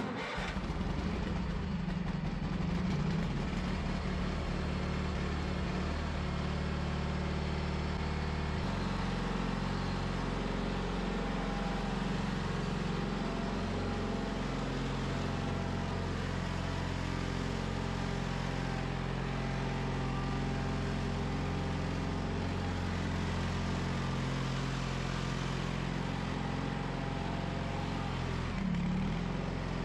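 John Deere 420 garden tractor's air-cooled Onan twin-cylinder engine running steadily, still cold, as the tractor drives off and pushes snow with its front plow blade; the engine note changes about eight seconds in.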